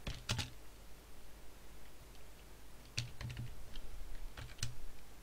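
Keystrokes on a computer keyboard in short runs: a few at the start, then more from about three seconds in.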